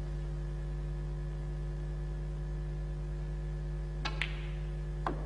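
Snooker cue tip striking the cue ball with a sharp click about four seconds in, then a second click about a second later as the cue ball hits a red, over a steady low electrical hum.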